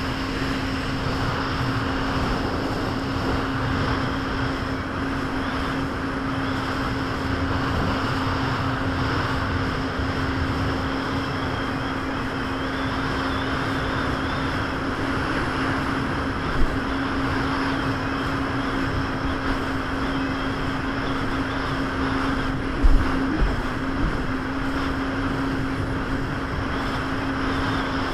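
Jet ski engine running at a steady, even speed over rushing water and wind noise, with a few sharp thumps a little past halfway and again later on.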